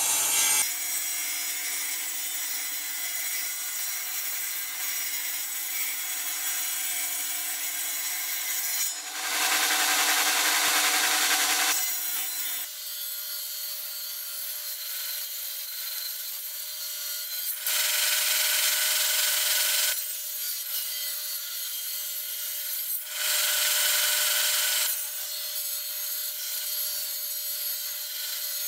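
Power saw running steadily as it cuts along the edge of 2¼-inch-thick OSB, trimming the tabletop. It gets louder for about three seconds at a time, about 9, 18 and 23 seconds in.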